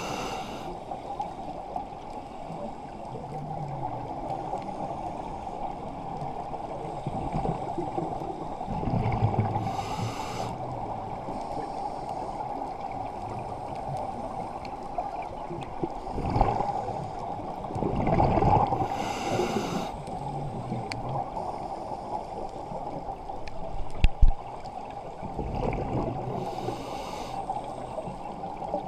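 Underwater sound heard through a camera housing: a steady hiss, with bursts of scuba regulator exhaust bubbles gurgling out every eight or nine seconds as the diver breathes. One sharp knock comes late on.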